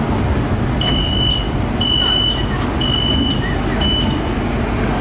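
Metro train door warning beeps: four high, even beeps about one a second, sounding as the doors are about to close. Underneath is the steady low hum of the stopped train.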